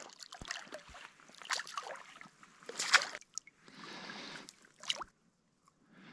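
Water splashing and sloshing in shallow water as a gill net with a fish caught in it is hauled in by hand. It comes in irregular bursts, the loudest about three seconds in.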